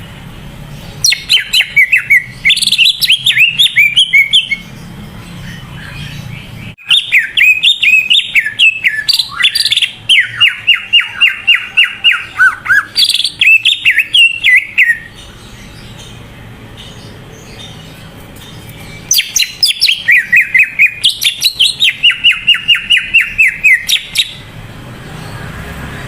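Greater green leafbird (cucak ijo) singing in three long bouts of fast, high chirping notes, with short pauses between.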